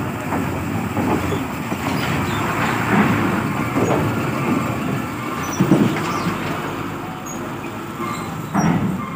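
Heavy diesel truck engines running on a ferry's vehicle deck as a truck drives forward out of the hold: a steady, dense rumble with a few small knocks.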